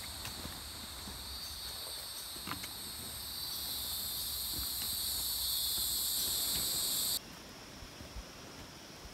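Loud, steady high-pitched drone of a forest insect chorus, with faint scattered clicks of footfalls on the trail. The drone stops abruptly about seven seconds in, leaving a fainter, thinner whine.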